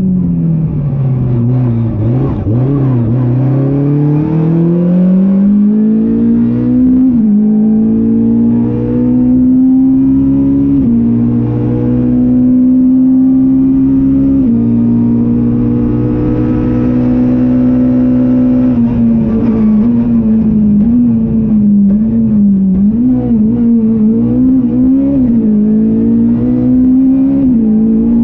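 Ford Fiesta R200 rally car's engine heard from inside the cockpit. The revs drop under braking near the start, then climb through the gears with small dips at each shift, hold steady at high revs for several seconds, and rise and fall repeatedly through a run of bends near the end.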